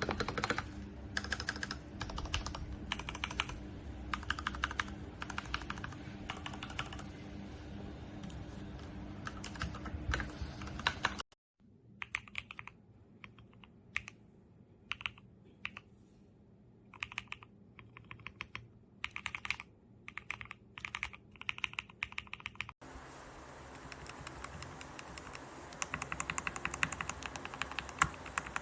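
Typing on a mechanical keyboard fitted with factory-lubed Gateron Pro Milky Yellow linear switches, keystrokes clacking in quick runs. The sound cuts abruptly twice, about eleven and twenty-three seconds in, to a quieter take and then a busier, louder one.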